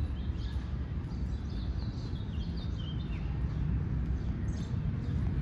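Small birds chirping in the trees, a run of short high chirps mostly in the first three seconds, over a steady low city rumble.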